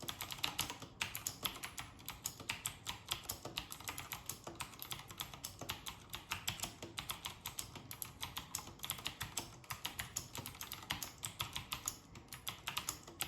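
Typing on a mechanical keyboard with clicky Cherry MX blue switches: a fast, uneven run of sharp key clicks.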